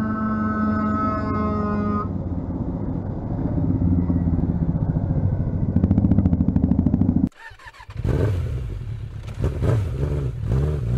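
Motorcycle engine running: a steady hum at first, then a low pulsing rumble that grows loudest around six to seven seconds in. It cuts off sharply just after seven seconds and is followed by a noisier, uneven stretch of vehicle sound.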